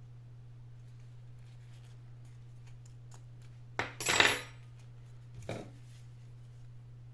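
Hard objects clattering as they are handled: a loud clatter about four seconds in and a shorter, quieter one a second and a half later, over a steady low hum.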